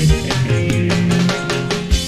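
Dangdut koplo band playing live: an instrumental passage with guitar, a bass line and drum hits.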